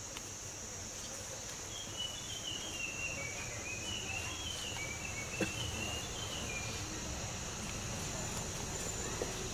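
Steady high-pitched drone of insects, with a bird's run of short chirps for a few seconds in the middle and a low rumble underneath.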